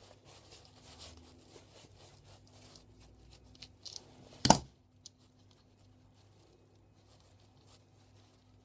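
Small screws and plastic plug parts being handled on a work surface, mostly quiet rustling, with one sharp click about four and a half seconds in.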